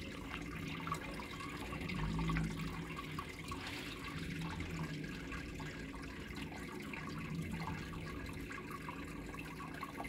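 Aquarium water steadily bubbling and trickling from the double-cascade filter's return and the rising air stream, over a steady low hum.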